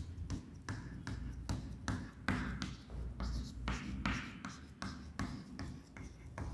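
Chalk on a chalkboard: a quick run of short taps and scratches, about three or four a second, as small marks are drawn one after another.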